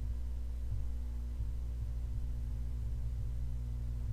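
Steady low hum with a faint hiss, unchanging throughout: the recording's background noise with no other sound.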